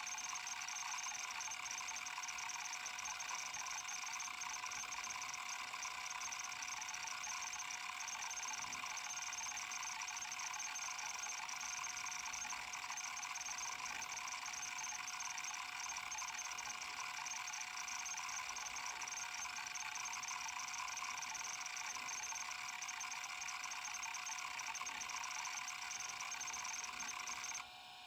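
Kalok KL3100 stepper-motor hard drive seeking continuously, its head stepper chattering in a fast, unbroken buzz. The chatter cuts off suddenly near the end, leaving a quieter steady hum.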